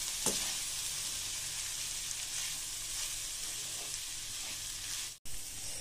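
Brinjal masala rice sizzling in a pan on a low flame, with a steady soft hiss, while a spatula stirs and scrapes through it. The sound drops out for an instant about five seconds in.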